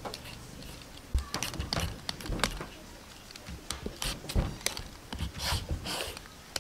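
Knife shaving the skin off a green papaya in quick short strokes: irregular runs of brief rasping scrapes, with a few dull knocks as the fruit shifts on a wooden chopping board.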